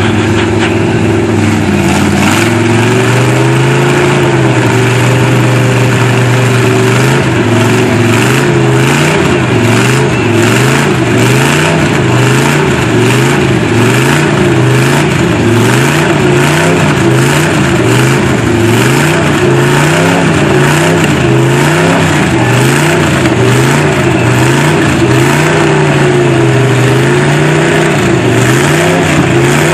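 GMC mud truck's engine revving hard under load in deep mud, held high for a few seconds, then its pitch rising and falling about once a second as the throttle is worked while the truck stays stuck in place.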